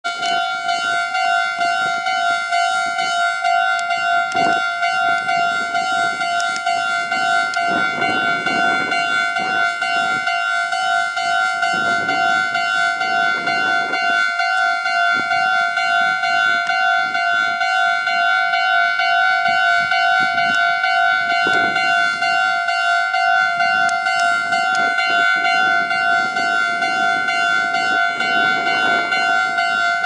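Japanese railway level-crossing alarm ringing its steady, rapidly repeating electronic ding, the warning of an approaching train.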